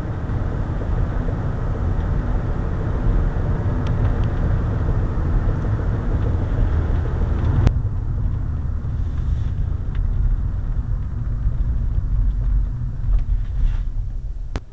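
Car driving with a heavy low rumble from a road wheel that was not properly done up and is wobbling on its hub. About halfway through there is a sharp click, after which the higher part of the noise drops away and the low rumble carries on.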